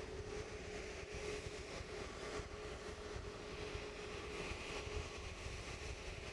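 Jet airliner engines running at taxi idle: a steady hum with a held mid-pitched tone and a faint whine above it, over a low uneven rumble.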